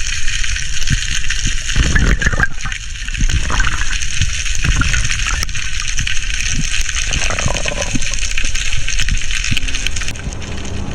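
Sea water rushing and gurgling around the camera, a steady hiss with irregular low thumps and a few brief bubbling sounds.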